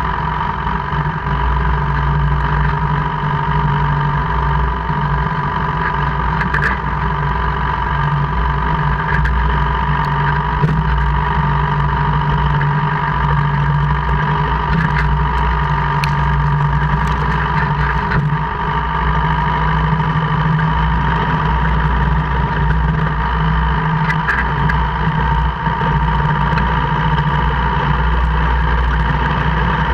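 2002 Jeep Cherokee KJ running, with a steady mechanical whine and a handful of sharp, irregularly spaced clicks. This is the gear-grinding/clicking noise that occurs only in four-wheel drive (4H or 4L), whose cause the owner does not know.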